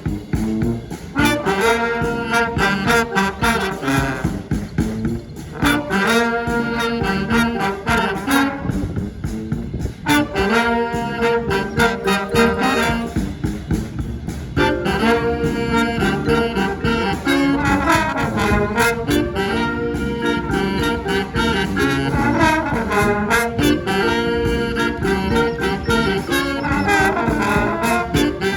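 Brass band playing a jazz tune: trumpets and trombones playing phrases with short breaks between them, over a steady beat.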